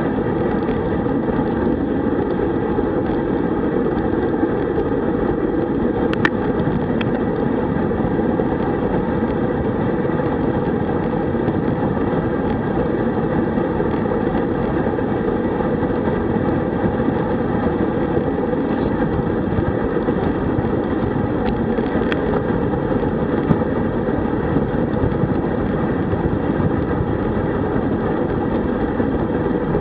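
Steady wind rush on a bike-mounted camera microphone together with road-bike tyre noise on asphalt at about 38 km/h. A couple of brief clicks are heard, one about six seconds in and one past the middle.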